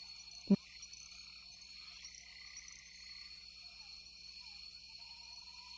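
Steady high-pitched chirring of insects, with faint rising chirps over it and one brief low note about half a second in.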